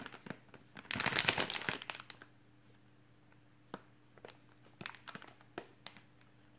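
Plastic instant-noodle packet crinkling as it is handled and turned over in the hands: a burst of crinkling about a second in, then a few scattered short crackles.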